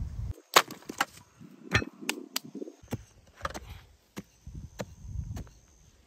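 Short-handled hoe striking and scraping hard dirt while digging a small hole: a dozen or so sharp knocks at irregular intervals.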